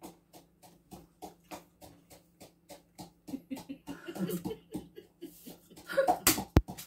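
Close-up chewing of crunchy raw vegetables, a quick even run of crunches about four a second. A short laugh or murmur comes about four to six seconds in, and a sharp click near the end.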